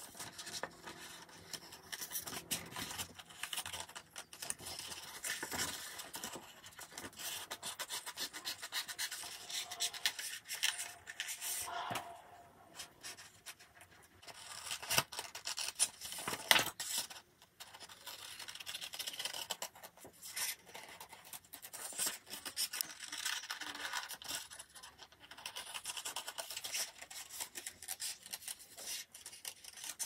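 Scissors snipping through drawing paper, with paper rustling and sliding as the sheets are turned and handled. A couple of louder sharp clicks stand out about halfway through.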